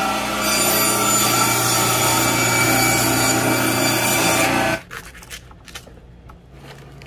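Electric meat band saw cutting through a piece of tuna: a loud, steady whine with several steady tones, growing louder and brighter about half a second in, then cutting off abruptly a little under five seconds in. After that come faint light knocks and scrapes of a knife working a tuna head on a wooden board.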